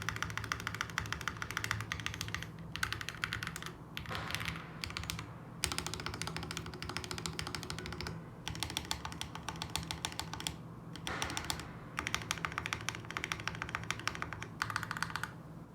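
Fast typing on a mechanical keyboard, the SP-Star Lucifer: dense runs of key clicks with a few brief pauses, over a faint low hum.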